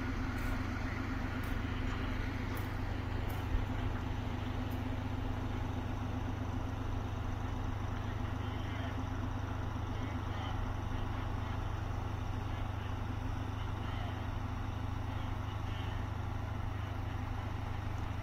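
Diesel shunting locomotive running steadily, a constant low rumble with a steady hum over it. There are faint clicks about once a second in the first few seconds and a single short knock near the start.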